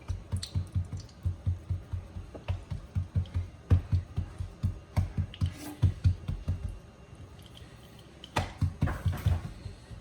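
Quick, soft patting thumps, about four or five a second, as hands press and flatten the greased feteer dough. They stop about seven seconds in and start again near the end.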